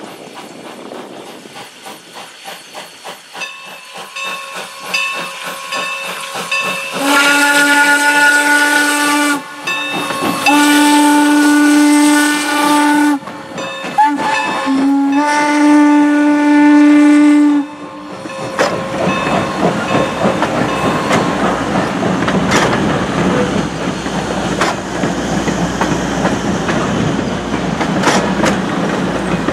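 Steam locomotive Norfolk and Western 4-8-0 No. 475 approaching with rhythmic exhaust beats that grow louder, then blowing its steam whistle about seven seconds in: two long blasts, a short one and a final long one, the long-long-short-long grade-crossing signal. After the whistle the passenger coaches roll past with a steady rumble and clickety-clack of wheels on rail joints.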